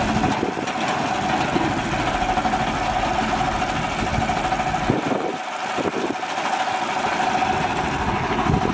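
Red mini tractor's engine idling steadily.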